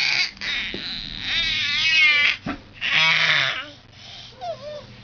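Baby girl making high-pitched 'heeee' squeals, two long ones with a wavering pitch, then softer babbling coos near the end.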